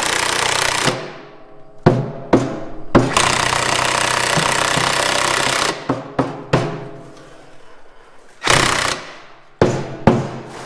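A loud air tool runs in two long bursts, alternating with sharp metal strikes that ring and decay: hammer blows on the truck's steel parts. A final shorter burst comes near the end.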